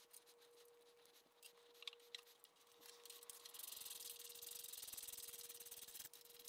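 Near silence with a faint steady hum. A couple of light metal clicks come as a steel bracket is fitted against the mill column, then a soft rubbing hiss as a bolt is turned by hand; the hiss stops abruptly near the end.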